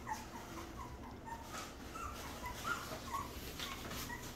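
Two-week-old Rottweiler puppy whimpering: a string of short, soft, high-pitched squeaks, about three a second.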